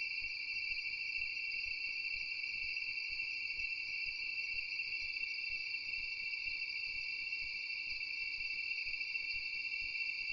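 Night insect chorus: a continuous, even trilling at two high pitches that does not change.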